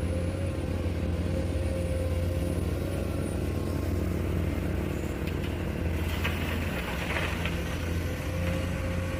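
Komatsu hydraulic excavator's diesel engine running steadily as the machine digs and dumps gravel: a low, even drone with a thin steady whine above it.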